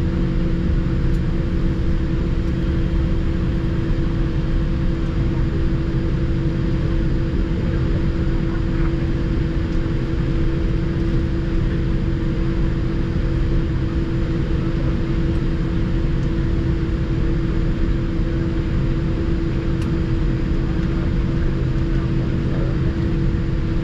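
Steady cabin noise inside a Boeing 787-8: a low rumble with a constant hum, unchanging throughout.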